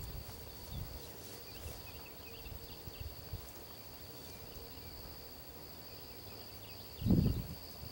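Open-field ambience: a steady high insect drone with scattered short bird chirps. A brief low rumble about seven seconds in is the loudest sound.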